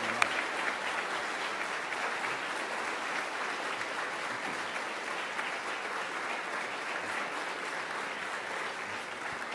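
Audience applauding: a dense wash of clapping from many hands that slowly eases off.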